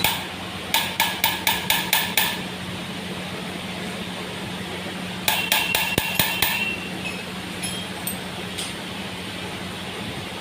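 Rapid hammer strikes on metal, about five a second, in two runs: one about a second in and another about five seconds in, the second with a ringing tone. A steady hum runs underneath.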